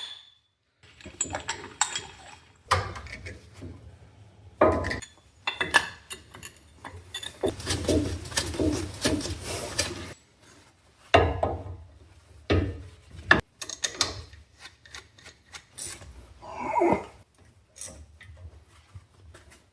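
Irregular knocks, clanks and scraping of metal hand tools and brake parts being handled during brake reassembly, with a denser stretch of scraping about seven to ten seconds in.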